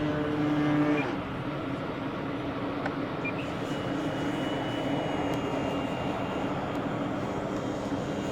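Motor and propeller of an E-flite Extra 300 electric RC aerobatic plane in flight, holding a steady tone for about a second and then throttling back, leaving a rushing noise of wind on the microphone.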